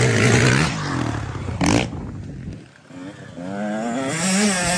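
Motocross dirt bike engine. In the first second and a half its note falls in pitch. After a brief lull it comes back louder, rising and wavering as the rider works the throttle on the approach.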